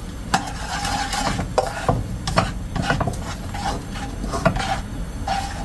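A metal fork stirring a thin milk sauce and scraping it around a nonstick wok. It makes a run of about ten short scraping strokes, many with a faint ringing note.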